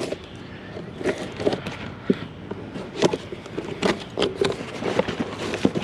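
Hands-on handling noise as a taped-up container is cut open with side cutters: irregular clicks, knocks, scraping and rustling.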